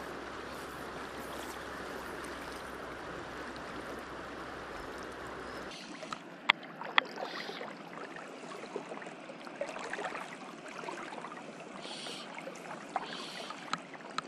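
River water rushing steadily. About six seconds in the sound changes abruptly to a lighter flow with a few sharp clicks and small splashes.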